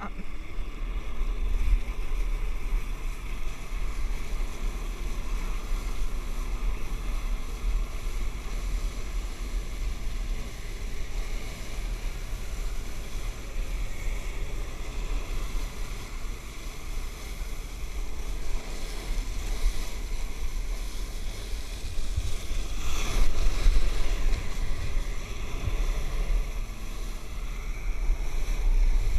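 Water-jet flyboard's nozzles blasting down onto the sea, a steady rush of spray and churning water with heavy wind buffeting on the microphone. The rush swells louder for a second or two late on.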